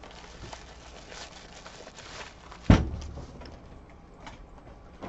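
Foil wrapper crinkling and rustling as hands peel it off a baseball, with one sharp thump a little past halfway.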